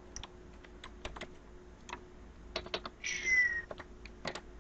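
Computer keyboard keys clicking in short scattered runs as a few digits are typed. About three seconds in, a brief squeaky sound slides down in pitch and is the loudest thing heard.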